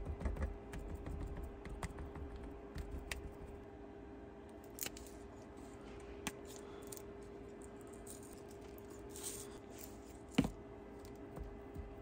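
Hands patting and pressing raw steaks on a plastic cutting board: soft thumps in the first few seconds, then scattered light taps and clicks, with one sharper click near the end. A faint steady hum runs underneath.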